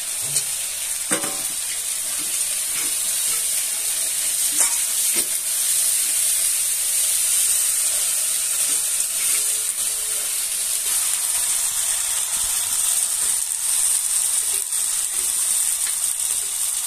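Onion-and-spice masala with freshly added tomatoes and green chillies sizzling steadily in hot oil in a metal karahi, with a metal spatula stirring and scraping against the pan in a few short clicks.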